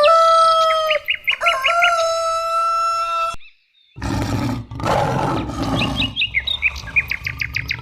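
A rooster crowing: two long, held calls that cut off sharply about three seconds in. After a short silence a different animal recording starts, with low rumbling noise and, near the end, a fast run of short high bird chirps, several a second.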